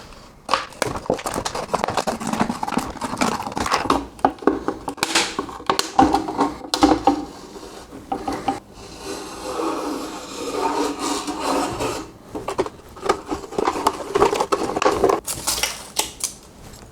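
PET plastic bottle being cut and handled with a Swiss Army knife blade: irregular crackling, scraping and clicking of the stiff plastic, with longer rubbing stretches.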